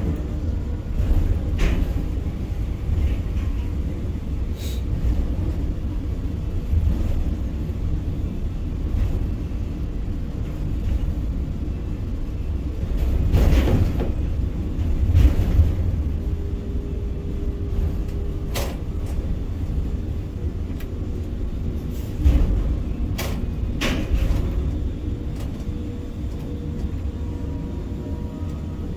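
Ship-to-shore container crane's trolley and hoist drives running, heard from the operator's cab as a steady low rumble while the empty spreader travels and lowers, with a few sharp clicks and knocks now and then.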